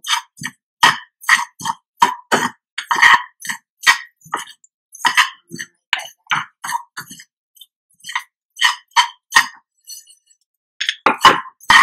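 Poppy seeds dry-roasting in a small frying pan while a metal spoon stirs them: irregular short crackles and scrapes, two or three a second, with a couple of brief pauses near the end. The crackling ('chata pata') shows the seeds are roasting to a reddish brown.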